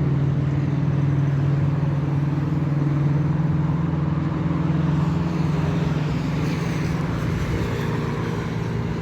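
Motor vehicle engine running steadily with road noise, heard while riding along.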